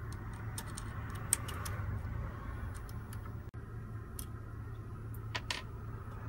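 Short, irregular metallic clicks and taps as a car key is seated and clamped into the vise of a key-cutting machine, over a steady low hum.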